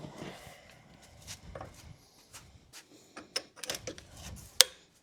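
Scattered light clicks, knocks and rubbing of objects being handled, with one sharper click near the end.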